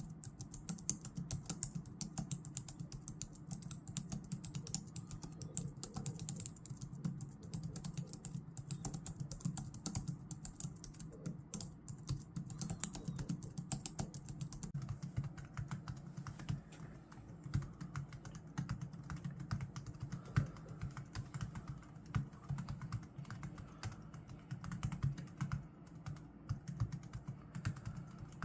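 Continuous fast typing on a computer keyboard, a dense run of key presses. About halfway through the key sounds turn duller, with less sharp high clatter.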